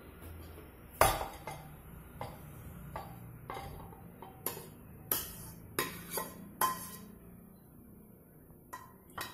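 Ceramic plate knocking and clinking against a large ceramic bowl as cut pineapple pieces are tipped and scraped into it: a string of sharp clinks, the loudest about a second in, thinning out over the last couple of seconds.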